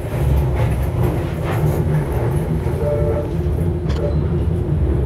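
Manchester Metrolink tram running along the track, heard from inside the passenger saloon: a steady low rumble with a few faint clicks.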